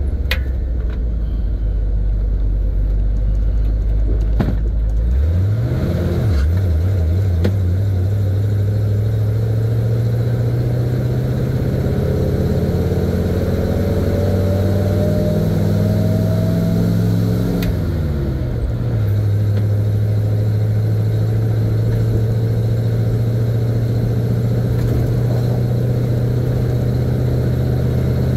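1970 Chevy C50 dump truck's engine heard from the cab. It idles low, then revs up to pull away about five seconds in, with a brief dip soon after, and climbs slowly in pitch. The pitch drops once more just before twenty seconds in, then holds steady as the truck cruises.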